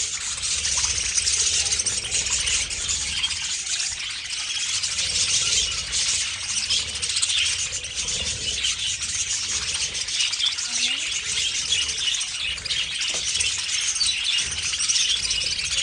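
A large flock of budgerigars chattering and chirping all at once, a dense, continuous warble of many overlapping short calls.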